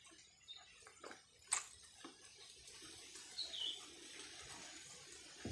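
Quiet eating sounds: a person chewing, with a few small sharp mouth clicks early on, over a steady hiss. A bird chirps once, briefly, a little past halfway.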